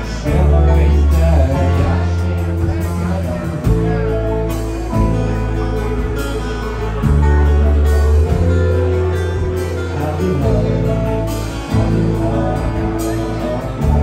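A live band playing a song: a lead voice singing over strummed acoustic guitars, with a deep bass line that changes note every second or two.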